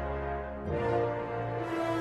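Intro theme music: sustained chords over a low bass note, moving to a new chord about two-thirds of a second in.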